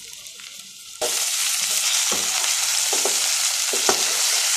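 Chicken and onions frying in hot oil in a metal pan. Faint at first, the sizzle jumps up sharply about a second in and stays loud, with a few knocks and scrapes of a steel slotted spoon stirring against the pan.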